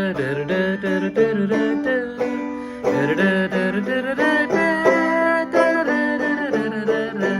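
Banjo played clawhammer style in G, strumming chords that move between G and D along with the melody.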